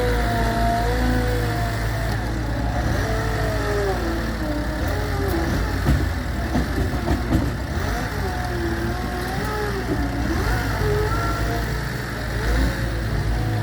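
Gehl V420 skid steer loader working: its diesel engine running with a deep steady rumble and a whine that rises and falls in pitch. A few sharp knocks come about halfway through.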